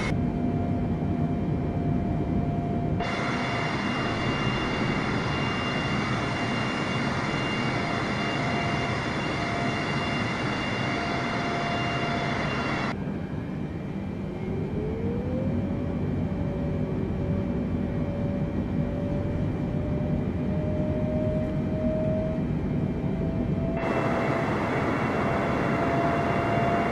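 Jet airliner engine and cabin noise: a steady rush with a thin engine whine. Partway through, the whine rises quickly and then keeps climbing slowly, as the engines spool up.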